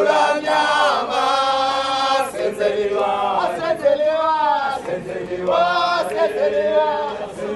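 A group of marchers singing a protest song together in chorus, mostly men's voices, holding long notes that bend up and down.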